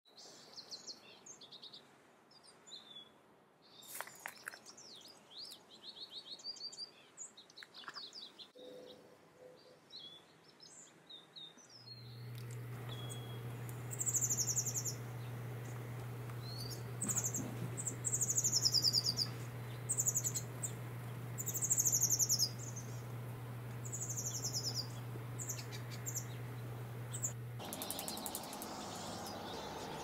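Wild songbirds chirping and calling. About twelve seconds in, a high, falling song phrase starts repeating every second or two over a steady low hum.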